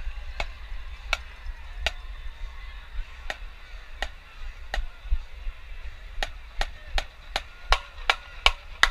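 Sharp wooden clicks of drumsticks keeping a steady beat, about one every 0.7 seconds. About six seconds in they come twice as fast and louder.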